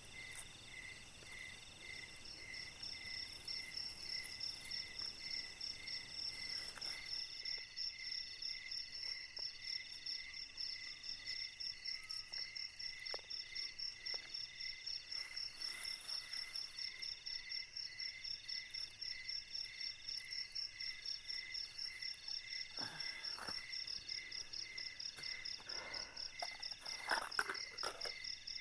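Night chorus of crickets and other insects: several overlapping pulsing trills at different pitches, one starting about two seconds in, with a few soft clatters and rustles of food handling near the end.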